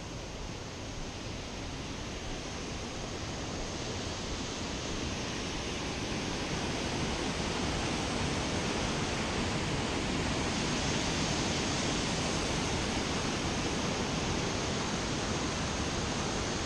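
Steady rushing of river water, growing gradually louder over the first several seconds.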